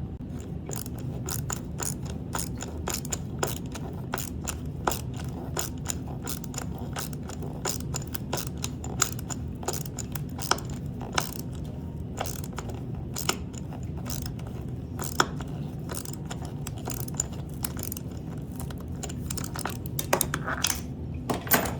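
Hand assembly work with metal hardware: irregular sharp metallic clicks and light scraping, one to three a second, as steel threaded inserts and bolts are handled and turned with hand tools, over a steady low hum.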